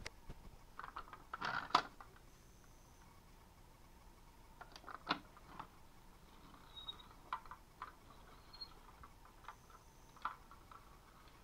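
Faint, irregular small plastic clicks and rattles as a toy cement mixer truck is handled, with a sharp click right at the start and a short burst of rattling about a second and a half in.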